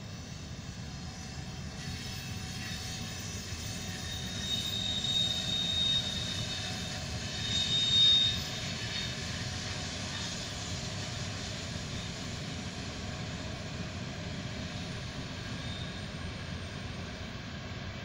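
Freight train of open wagons hauled by two electric locomotives passing at a distance, with the steady rumble of wheels on rails. A brief high squeal rises twice, about a third and halfway through, the second the loudest moment.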